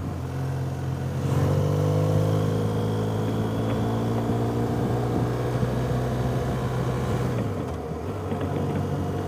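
Motorcycle engine running on the move. Its note rises as it pulls harder about a second in, then sinks slowly and drops as the throttle eases near the end.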